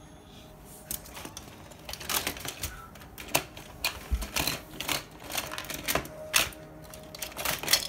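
Toy trains clattering and knocking against each other and the sides of a plastic storage tub as a child rummages through them, in quick uneven clicks starting about a second in.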